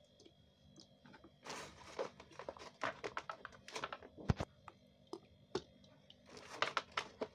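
Eggs being put by hand into a plastic basin of salt water: a run of light clicks and knocks of shell against shell and against the plastic, with small splashes. The sharpest knock comes about four seconds in.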